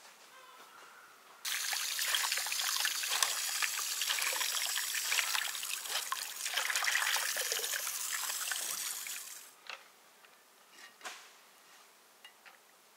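Water running from a hose pipe into a metal colander of pumpkin seeds while hands rub the seeds clean. It starts suddenly about a second and a half in and stops a few seconds before the end, followed by a few faint clicks as the wet seeds are handled.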